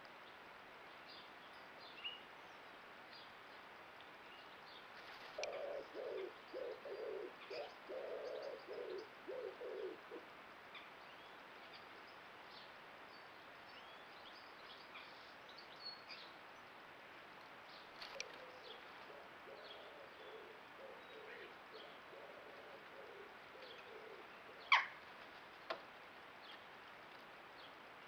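A pigeon cooing in a slow, low rhythmic phrase of about eight notes, repeated more faintly later, with faint high chirps of small birds throughout. A single sharp click near the end.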